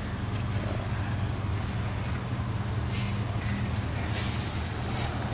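Heavy diesel truck engines idling close by, a steady low hum, with a brief hiss of air about four seconds in.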